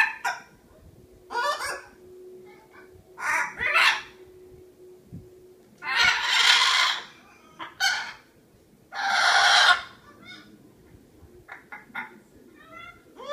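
Miligold macaw vocalizing: a string of short pitched calls and two long, harsh squawks about six and nine seconds in, with a few fainter chirps near the end.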